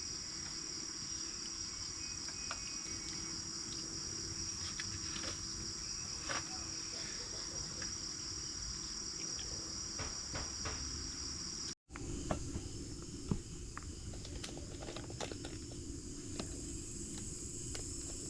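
Crickets chirring in a steady high trill, with scattered light clicks. The loudest part of the trill cuts off suddenly about two-thirds of the way through, leaving a fainter, higher trill.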